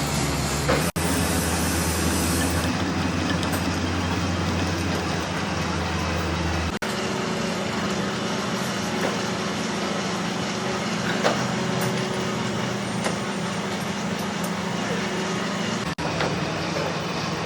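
Metal lathe running, a steady machine hum and drone, broken by abrupt cuts about a second in, about seven seconds in and near the end.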